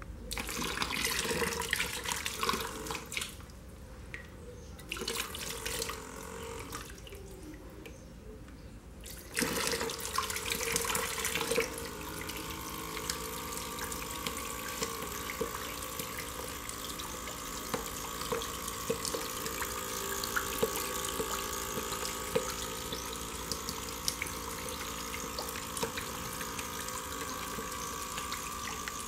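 Water splashing in uneven bursts onto a homemade spoon-bladed water wheel and into the basin below. About twelve seconds in it gives way to a steady rush of water as a jet strikes the spinning spoons and falls into the basin, with a faint steady hum.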